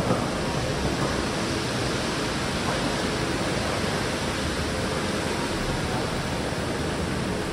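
Steady hiss of rain falling outside a covered parking area.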